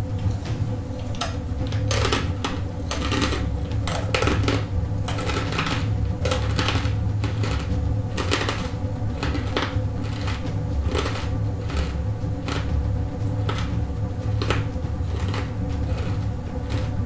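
Close crunching of a mouthful of wasabi-coated peanuts being chewed: irregular crisp crunches, roughly two a second, over a steady low hum.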